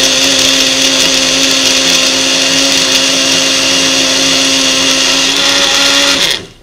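Several electric blenders running at once, a countertop pitcher blender and personal bullet-style blenders, giving a steady high motor whine over a low hum that cuts off about six seconds in. The thick fruit-and-milk mix in the pitcher blender is not blending.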